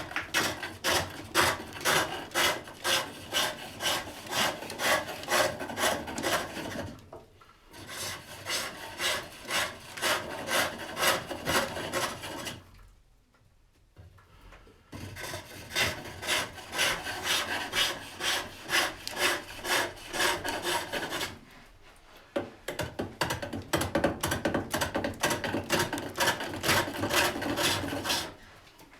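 Hook tool cutting wood on a foot-powered pole lathe, a rhythmic scraping at about two strokes a second as the work spins back and forth with each treadle stroke, stopping briefly a few times.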